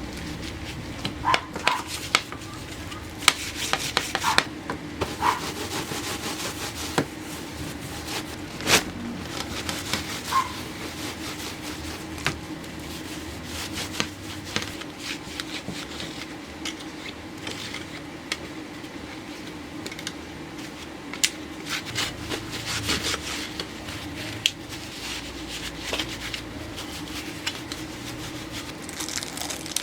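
Household objects being handled and wiped: irregular rubbing and scraping with many scattered clicks and knocks, over a steady low hum.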